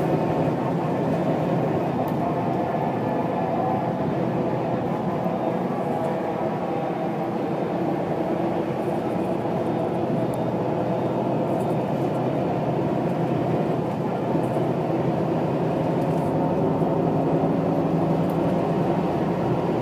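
Steady running noise of a bus heard from inside the passenger cabin: engine and tyre rumble, unchanging in level.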